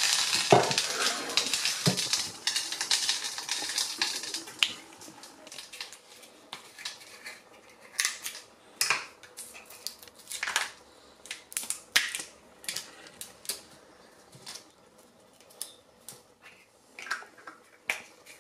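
Frying pan sizzling, with a couple of knocks of pan and plate; the sizzle stops abruptly about four and a half seconds in, leaving scattered light clicks and taps of kitchen handling.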